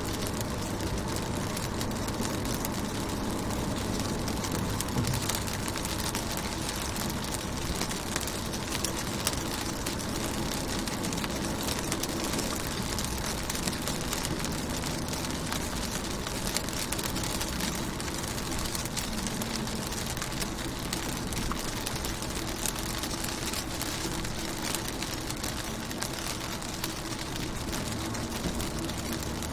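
Rain falling on a car's window and body: a steady hiss of rain dotted with many small drop taps. Underneath runs a low steady hum.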